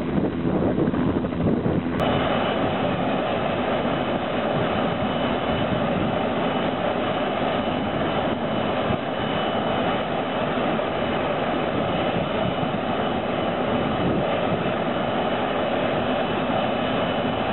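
Light turbine helicopter running on the ground: a steady engine whine over the rush of the rotor. About two seconds in the sound comes closer and fuller, with a thin high whine held on top.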